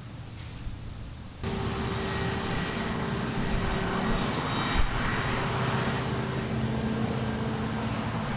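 Low rumble that switches abruptly, about a second and a half in, to the steady running of heavy harvest machinery: engine drone with a thin high whine.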